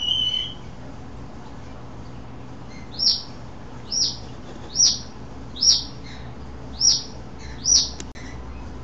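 A bird calling: a brief steady whistled note at the start, then, from about three seconds in, a series of six short high chirps, each sliding downward, evenly spaced a little under a second apart.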